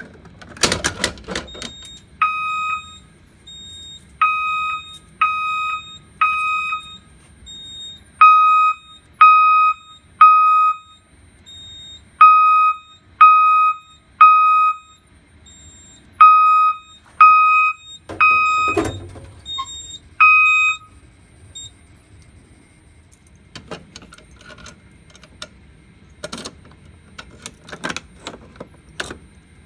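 System Sensor fire alarm horn set to its 1200 Hz tone, sounding code 3: loud beeps about a second apart in groups of three, with a longer gap between groups, stopping about 21 seconds in. A short rattle comes just before the horn starts, and a few scattered knocks come after it stops.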